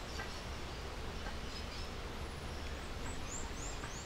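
Faint, short high-pitched chirps, three in quick succession near the end, over a steady background hiss and low hum.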